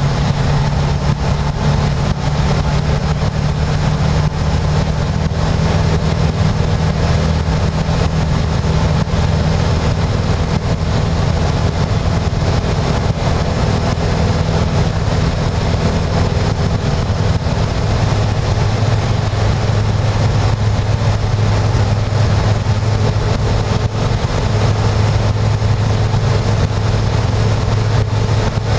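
Engine and propeller of a Rider MD-3 microlight running steadily, heard from inside the cockpit in low flight. The engine note drops a little about two-thirds of the way through.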